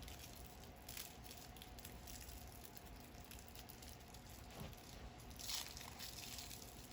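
Faint handling noises of a toy unboxing: plastic wrapping crinkling and small plastic toy pieces clicking, with a slightly louder rustle about five and a half seconds in.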